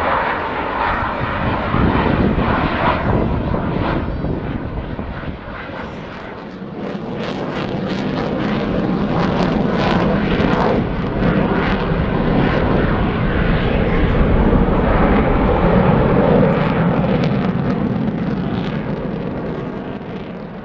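F-16 fighter jet's single jet engine as the aircraft flies a low display pass. The jet noise swells and dips as the aircraft passes and turns, is loudest a little past the middle, and fades near the end.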